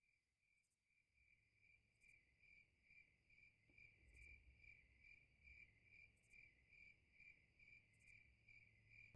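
Faint crickets chirping steadily, a soft pulsing trill at about three chirps a second, under a very quiet night ambience.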